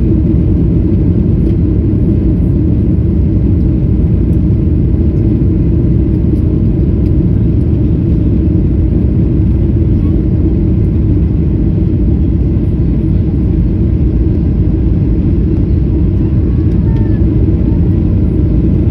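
Airliner cabin noise: a loud, steady low rumble of engines and rushing air that holds even throughout.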